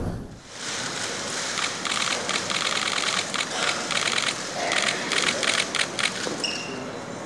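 Camera shutters clicking in rapid bursts, many frames at a time. A short high beep sounds near the end.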